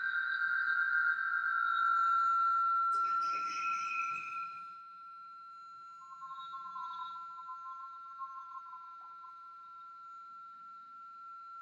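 A steady, high-pitched electronic tone, loudest in the first few seconds. There is a click about three seconds in, and a lower, wavering tone joins for a few seconds past the middle.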